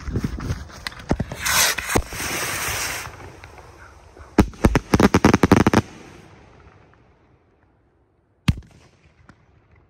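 BDH Sun God 25-shot rocket barrage firing: a loud hiss of launching rockets from about a second and a half in, then a rapid string of sharp cracks a little after four seconds. The cracks fade into a dying hiss, and one last pop comes near the end.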